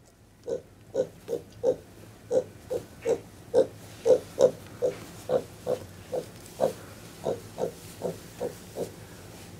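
Potbellied pig grunting: a steady run of short, soft grunts, about two to three a second, over a faint low hum.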